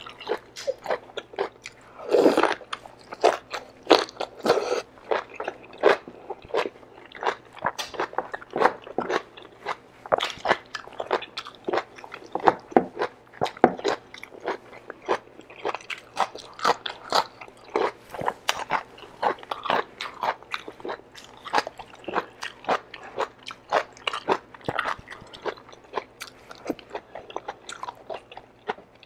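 A person biting and chewing kare-kare with its vegetables and beef, close to the microphone: a dense, irregular run of crunches and wet chewing clicks.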